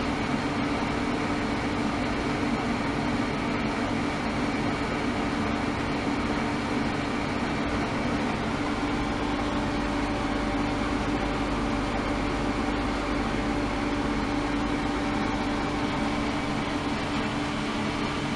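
Ultrasonic cleaning tank with immersible transducer plates running, giving a steady hiss and hum from the liquid with a strong low drone and several faint steady tones.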